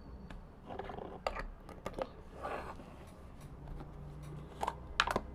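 Slime being squeezed and kneaded by hand: a run of irregular sticky clicks, pops and squelches, with a few sharper pops about five seconds in.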